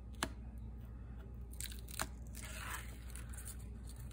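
Release liner being peeled off strips of double-sided tape: a couple of short, faint peeling rasps with a few light clicks of paper and tape.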